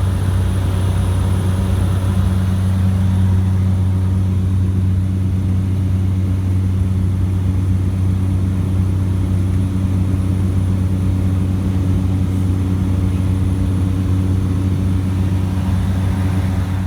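Steady low droning hum from a running machine, holding an even level throughout.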